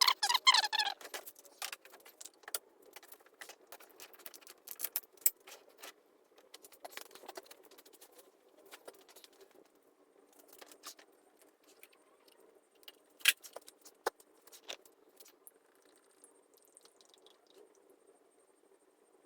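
Irregular clicks, taps and light rattles of small objects being handled, with a sharper knock about 13 seconds in; the handling thins out toward the end.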